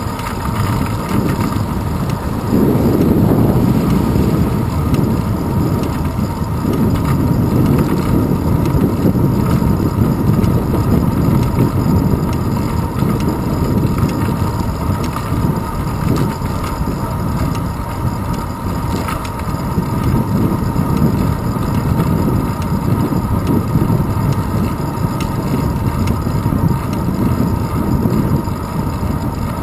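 Wind rumble and road vibration picked up by a handlebar-mounted GoPro Hero 2 as the bicycle rolls along a paved road: a steady low noise that swells and eases, with a faint high tone underneath.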